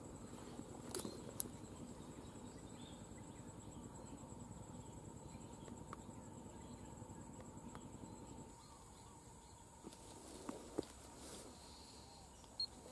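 Faint outdoor ambience: a steady high-pitched insect trill, with soft rustling that eases off partway through and a few small clicks, the sharpest about a second and a half in.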